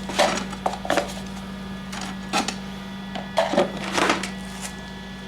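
Irregular metallic clicks and knocks, about seven in five seconds, over a steady low hum.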